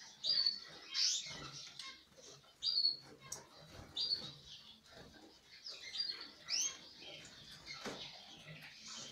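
Canaries in an aviary giving short, high chirping calls, one about every second, some notes rising and some falling.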